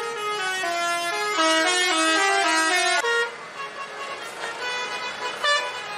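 Bus telolet horn, a multi-note musical air horn, playing a fast tune of quickly changing notes that cuts off suddenly about halfway through. A quieter stretch follows, with one short horn blast near the end.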